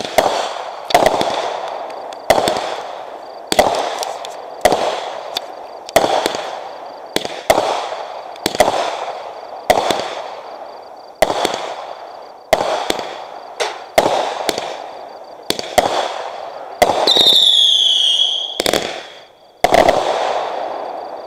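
Consumer aerial fireworks going off shot after shot, about one a second, each a sharp bang with a fading tail. Near the end a whistle falls in pitch for about a second and a half.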